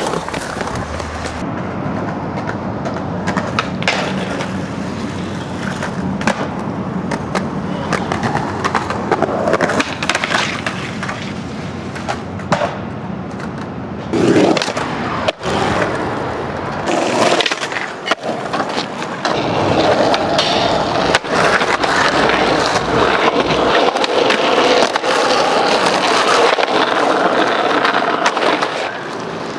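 Skateboard wheels rolling on concrete pavement, with sharp clacks of the board hitting the ground at intervals as tricks are popped and landed.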